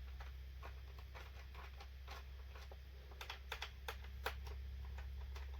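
Light, irregular metallic clicks and taps of an Allen key working the magazine bolts loose on a DeWalt 20V framing nailer. The clicks come thicker and louder about three to four and a half seconds in, over a steady low hum.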